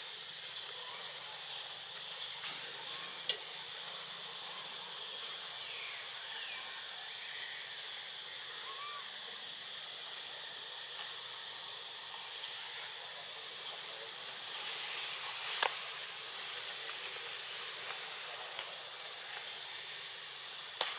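Forest ambience: a steady high insect drone, with short chirps repeating about every second and a half through the middle and a couple of sharp clicks.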